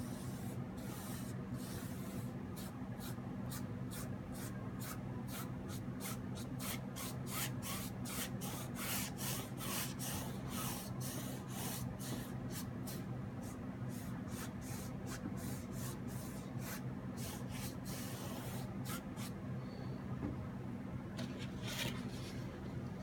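Paintbrush scratching across the painting surface in quick, repeated strokes, about two or three a second, pausing for a few seconds near the end. A steady low hum runs underneath.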